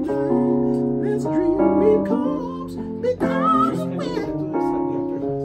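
Electric piano playing held soul chords that change about once a second, with a male voice singing wordless vocal runs over it in two short phrases.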